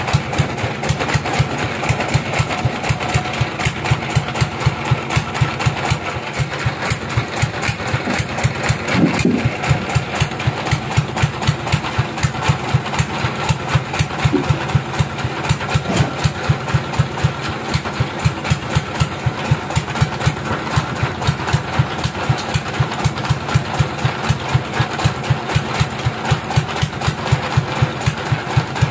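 Sawmill engine idling with a steady, even beat of about three pulses a second; no cutting is heard.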